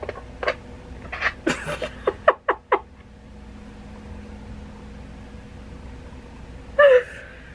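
A woman's stifled laughter behind her hand: a quick run of short breathy bursts over the first three seconds, then quiet room tone, and one brief loud voiced sound near the end.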